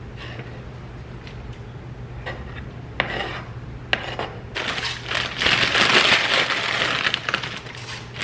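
A fork scraping shredded chicken off a plastic cutting board into a slow cooker, with a couple of sharp taps about three and four seconds in, then about three seconds of loud rasping and rustling in the second half, over a steady low hum.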